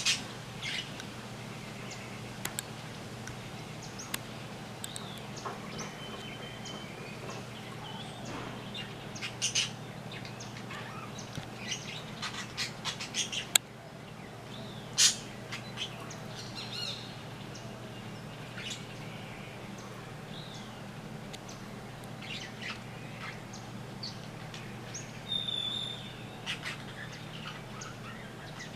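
Birds giving short calls at irregular intervals, a few of them loud, over a steady low hum.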